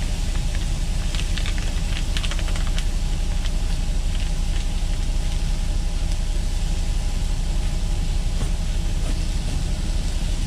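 Diesel engine of a parked Freightliner semi truck idling, a steady low rumble heard inside the cab. In the first three seconds a plastic food bag crinkles and rustles a few times.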